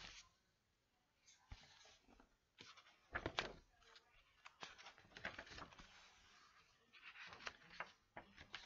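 Faint paper rustles and soft taps as the pages of a hardcover picture book are opened and turned, the loudest rustle about three seconds in.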